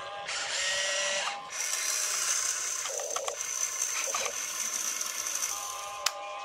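Electric motors and gearboxes of a toy RC excavator whining as it swings its boom and lifts a bucket of dirt, the pitch shifting as the motors take up load, with a sharp click about six seconds in.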